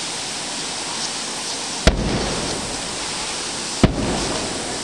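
Two aerial firework shells bursting about two seconds apart, each a sharp boom trailed by a low rumble, over steady background noise.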